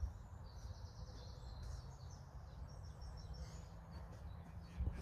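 Faint outdoor ambience: a low steady rumble with high chirping from birds.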